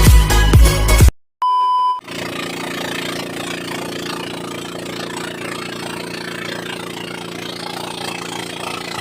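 Electronic intro music cuts off about a second in, a short steady beep follows, and then a small fishing boat's engine runs steadily at idle for the rest of the time.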